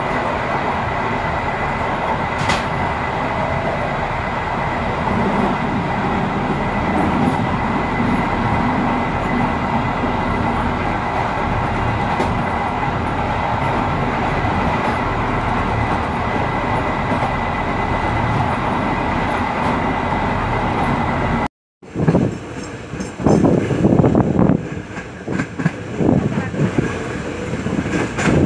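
Train running steadily on the rails, heard from the driver's cab, with a constant high whine over the even track noise. About 21 seconds in, the sound cuts out briefly, and a louder, uneven rumble and rattle follows, heard from a train's open carriage doorway.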